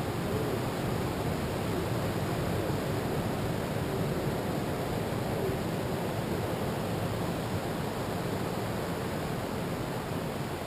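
Ocean surf washing onto a beach, with wind: a steady, even rushing noise with no distinct events.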